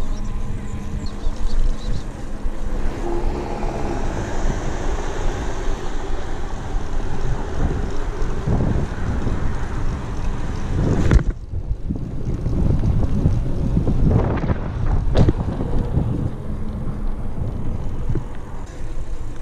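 Wind buffeting the microphone of a camera worn by a cyclist riding a bicycle on pavement, with tyre rumble underneath. One sharp knock about eleven seconds in.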